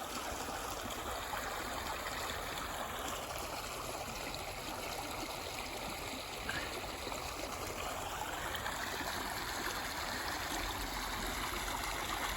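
Swamp floodwater pushing through a washout at the side of a road: a steady rush of running water as the swamp drains.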